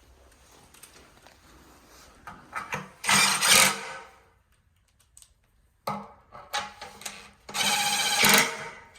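Cordless drill driving bolts into cot parts in two short runs of about a second each, about 3 seconds in and again near the end, with knocks of parts being handled between them.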